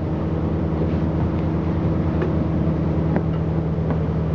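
Engine of the Hakone sightseeing ship Victory running steadily under way: a constant low drone with a hiss of wind and water over it.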